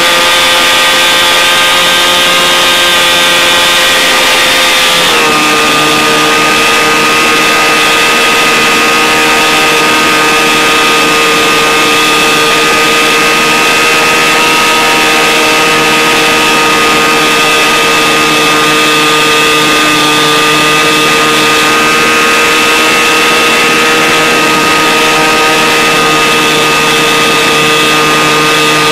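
Small airplane in flight, heard from a phone taped to the outside of the airframe: a loud, steady engine and propeller drone under heavy rushing wind. About five seconds in, the engine note steps down slightly and then holds steady.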